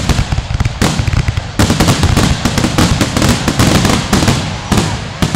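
Aerial fireworks going off: a rapid run of sharp bangs and crackling pops. It turns densest from about a second and a half in.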